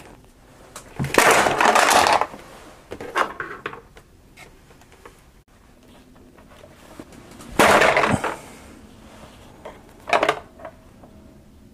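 Plastic action figures and a toy ambulance being handled and set in place: a few short bursts of scraping and knocking, the loudest about a second in and again about two-thirds of the way through.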